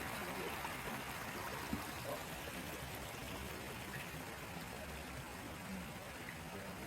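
Running water rushing steadily, easing off a little toward the end.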